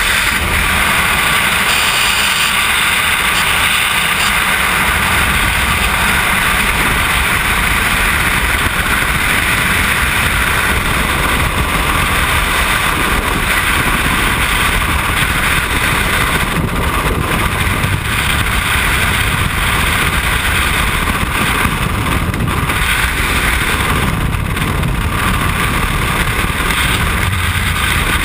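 Freefall wind rushing over a helmet-mounted camera's microphone: a loud, steady rush of air noise from falling through the sky.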